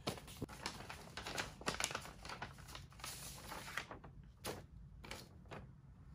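Sheets of paper rustling and crinkling as they are handled and drawn from a manila envelope, busy for about the first four seconds, then a few separate rustles.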